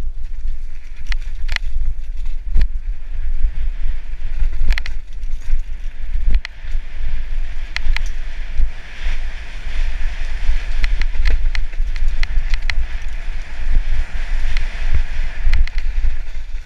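Mountain bike riding fast down a rocky trail: tyres crunching over loose stones and frequent sharp rattles and knocks as the bike hits bumps, with wind buffeting the microphone.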